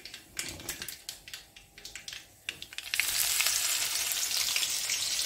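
Mustard and cumin seeds crackling in hot oil in a kadai, sharp irregular pops; about three seconds in, chopped green chillies go in and the oil breaks into a loud, steady sizzle.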